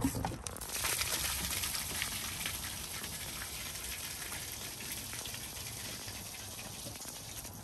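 Grey water from a 2020 Winnebago Revel's grey water tank gushing out of the opened drain outlet and splashing onto asphalt. The rush starts just under a second in, right after the drain valve is pulled, then runs steadily and eases slightly toward the end as the tank drains.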